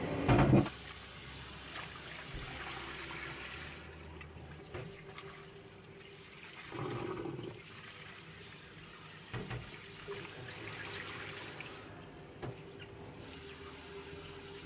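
Water running, with a short loud clatter just after the start and a few lighter knocks later on.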